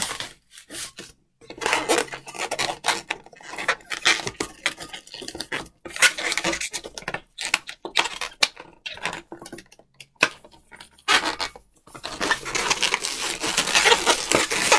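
Long latex modelling balloon being twisted, pinched and rubbed by hand: an irregular run of squeaks and rubbing, with a few short pauses, busiest near the end.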